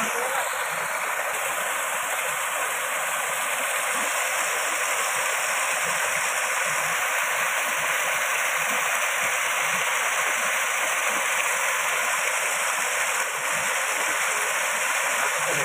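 Small waterfall spilling into a shallow rocky stream: a steady rush of falling and running water.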